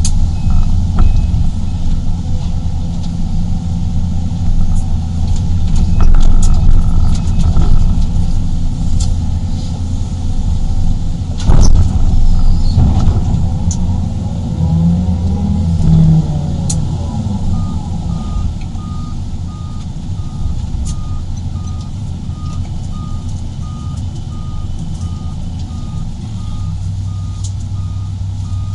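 Sumitomo SH350-HD excavator's diesel engine running steadily under load, heard from inside the cab, with a few sharp knocks of raw rock against the steel skeleton bucket. Past the middle, a steady pulsed reversing beeper starts as the Terex TA30 articulated dump truck backs in to be loaded.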